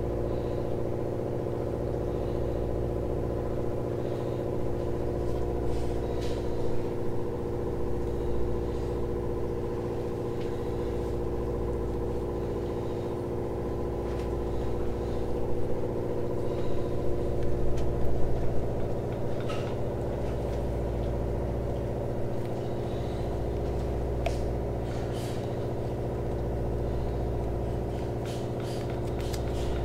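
Steady, engine-like mechanical drone of a machine running nearby, with a deep throb that swells and dips about every three seconds; a few faint clicks sit over it.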